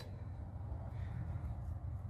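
Steady low background rumble with no distinct sound events.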